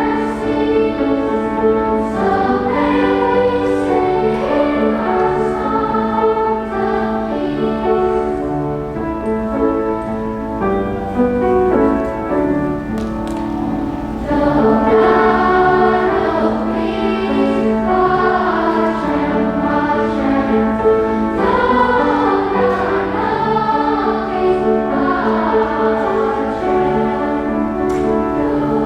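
A choir singing a song over steady, held instrumental accompaniment.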